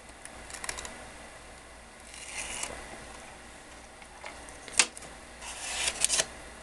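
A few short clicks and rustles of small hard objects being handled, with one sharp click just before the five-second mark and a quick cluster of clicks about a second later.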